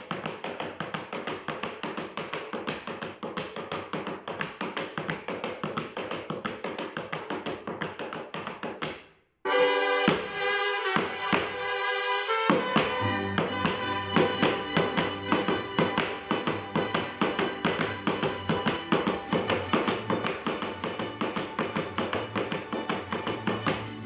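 Heeled folklórico dance shoes stamping fast and without a break on a wooden board: alternating flat-foot stamps (plantas) of the zapateado step called carretilla. About nine seconds in the sound cuts off abruptly, then lively Latin American music starts and the stamping continues over it.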